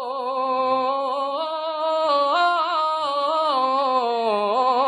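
A man singing a naat, an Urdu devotional poem, without accompaniment. He draws out one long wordless melismatic phrase with a wavering vibrato. The pitch steps up about two seconds in and sinks near the end.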